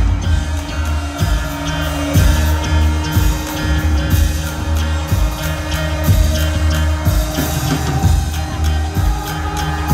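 Live band music recorded from the audience: a heavy, sustained bass and steady kick drum under layered sustained keyboard tones.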